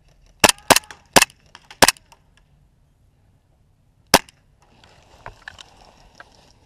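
Gas blowback airsoft pistols firing: four sharp cracks in quick succession within the first two seconds, then one more after a pause of about two seconds. A faint rustling follows near the end.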